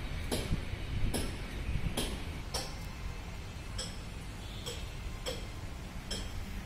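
Sharp clicks about once a second, some with a short metallic ring, over a steady low rumble.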